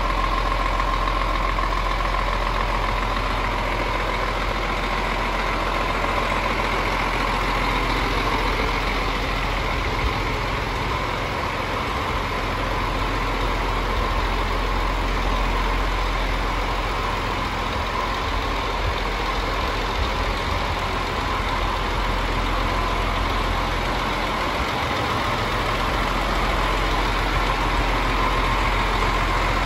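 Scania G440 tractor unit's 13-litre straight-six diesel engine idling steadily.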